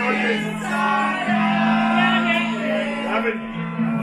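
Several small toy kazoos hummed into at once, giving buzzy notes that waver and bend in pitch, over steady background music.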